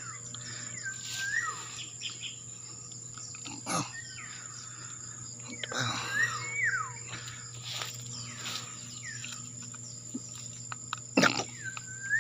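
Rustles and knocks from hands pulling and handling mushrooms in the grass, over a steady high insect drone. A bird calls a few times with short whistles that slide up and down in pitch.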